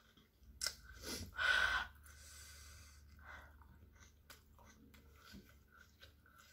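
A woman blowing out a few hard breaths through her mouth in the first two seconds, then quieter breathing with small mouth clicks, as she reels from the burn of very spicy chili noodles.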